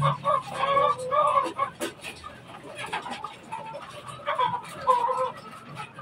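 Caged chickens clucking and squawking in short, repeated calls, with a few light knocks and clicks among them.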